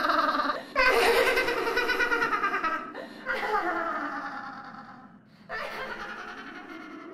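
A character's voice laughing in four long bouts with short breaks between them, the laughter growing fainter toward the end.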